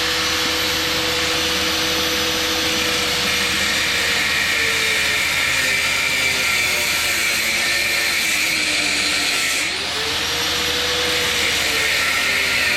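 Electric power tool running steadily while cutting apart brass pressure relief valves, its motor pitch sagging under load; about ten seconds in it slows briefly and spins back up.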